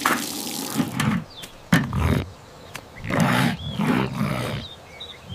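A gruff cartoon voice making animal-like growling sounds without clear words, in about three short stretches.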